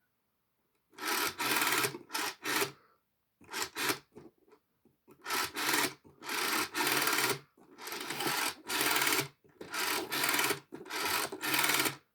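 Rotary dial of a mobile phone being pulled round and spun back, digit after digit, as a number is dialled: a string of separate rasping whirrs, each up to about a second and a half long, with short pauses between.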